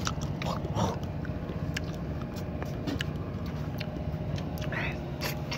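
A steady low motor hum runs throughout, with scattered light clicks of chopsticks against a ceramic rice bowl and an aluminium pot.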